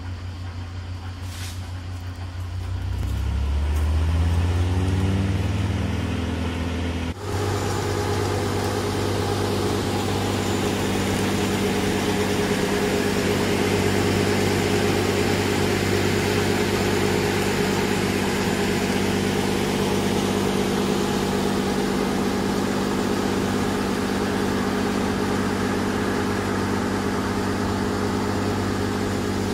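Bandit Intimidator 12XP branch chipper's bioethanol-fed petrol engine, speeding up over a few seconds, then, after an abrupt cut about seven seconds in, running steadily at a constant speed.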